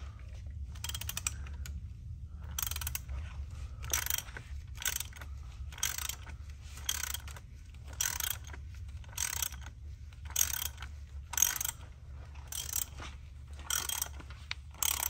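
Hand ratchet and socket clicking in short bursts, about one stroke every half second after the first couple of seconds, as the 27 mm oil filter housing cap is loosened.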